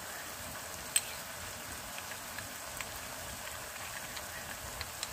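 Steady sizzling hiss of water spinach and fish heads cooking in the pan, with one sharp click about a second in and a few faint ticks.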